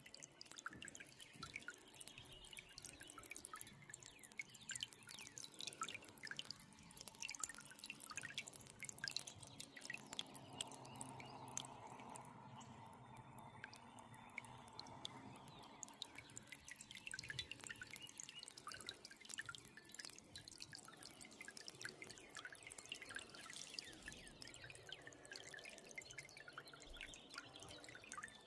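Faint water dripping: many small, irregular drops falling close together.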